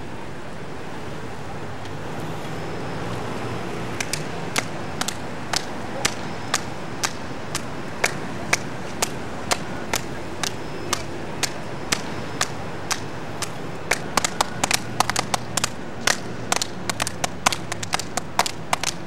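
Sharp hand claps at a steady beat of about two a second over a background murmur of voices, with more claps joining in, denser and less even, from about two-thirds of the way through.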